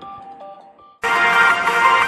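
A short electronic jingle of plain, ringtone-like tones fades out. About a second in, loud, full music cuts in abruptly.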